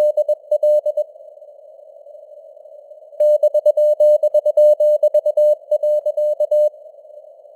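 Morse code sent as a single steady tone at 21 words per minute, keyed in dots and dashes over a narrow band of simulated radio static. The keying stops about a second in, leaving only the hiss, resumes about three seconds in, and stops again near the end.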